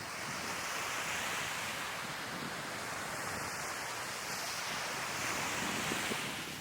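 Sea waves breaking and washing ashore: a steady hiss of surf that swells up at the start and eases off near the end.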